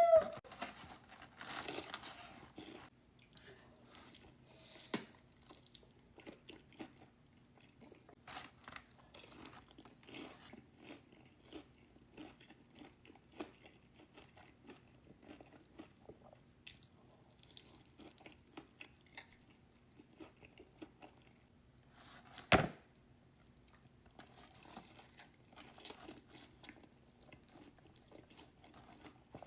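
Close-miked chewing and crunching of food with many small wet mouth clicks, as in a mukbang. One loud, sharp crunch or knock comes about 22 seconds in.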